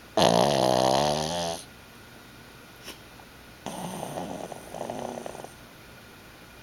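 A pug snoring in its sleep: one loud, pitched snore lasting over a second, then, after a pause, a quieter fluttering snore in two parts.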